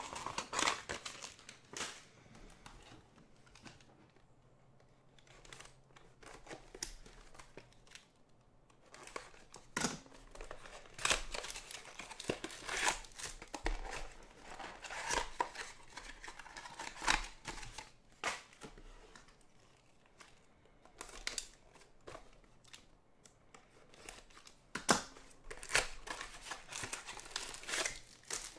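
A Bowman's Best trading-card box being opened by hand, its cardboard tearing and the foil-wrapped packs inside crinkling as they are handled and pulled out. The sound is irregular rustling and sharp crackles.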